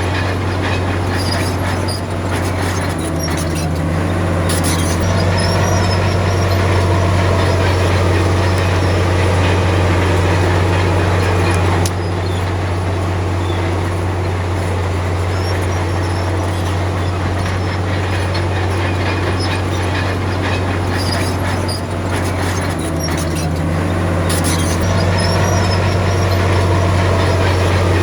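Crawler bulldozer's diesel engine running steadily with a deep, even drone and a continuous metallic rattle over it, dipping briefly about two seconds in and easing off near the middle.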